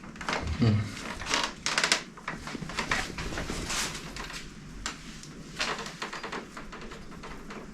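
Bicycle parts and tools knocking and clicking as a mountain bike is worked on, with a quick rattle just before two seconds in and a short falling tone about half a second in.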